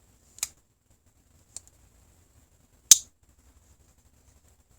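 Skinner blade of a Rough Ryder Copperhead slipjoint pocket knife snapping into its half-stop and open or closed positions against the backspring, with an audible lockup. There are three sharp clicks: a clear one, a faint one, and the loudest about three seconds in.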